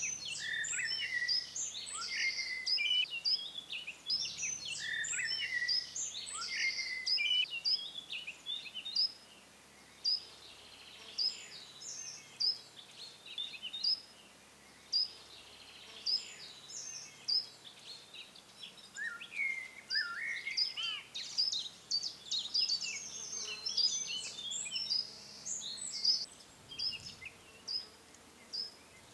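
Several small songbirds singing and calling at once, many quick chirps and trills overlapping, thinning after about nine seconds to separate short chirps with a few falling notes.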